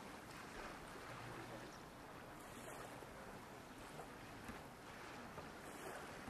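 Faint, steady outdoor ambience of harbour water and open air: a soft, even hiss with a couple of light clicks, and no distinct event.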